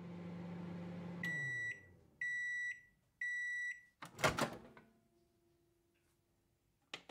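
Microwave oven finishing: its running hum winds down, then it beeps three times about a second apart. Just after four seconds a loud clunk follows as the door is opened.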